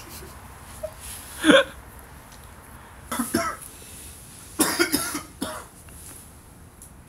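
A person coughing from inhaled smoke, in three short bouts about a second and a half in, around three seconds in and around five seconds in.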